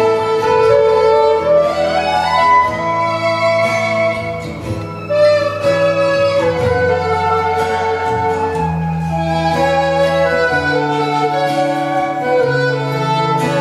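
Background music: a slow melody over long, sustained low notes.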